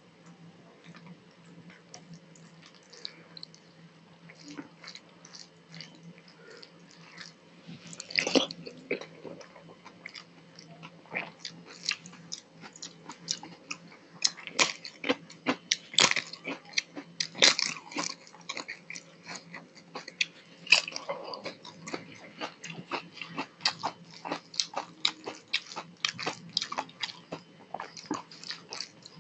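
Close-miked eating: crunching bites and chewing of a crisp papad (fried lentil wafer), starting about eight seconds in, with many sharp crunches in quick succession after that. Before that there are only soft, quiet eating noises.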